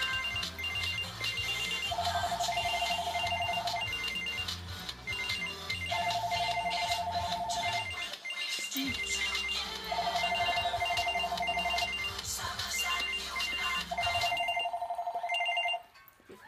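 Ringtone-style electronic music: a trilling ring tone repeats in two-second bursts every four seconds over a bass beat, and stops suddenly near the end.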